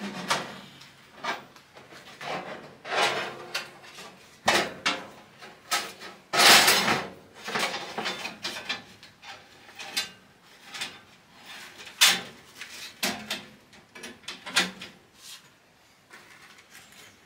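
Steel bandsaw blade clattering and scraping against the saw's table slot, guides and wheel housing as it is fed back over the wheels; irregular knocks and rattles, loudest about six to seven seconds in.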